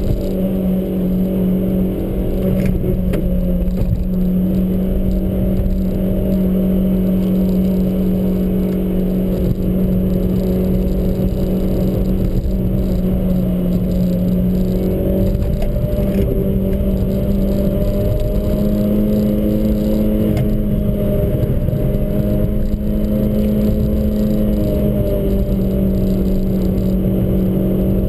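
Car engine running at a steady speed while driving. Its note rises a little for a few seconds past the middle, then settles back.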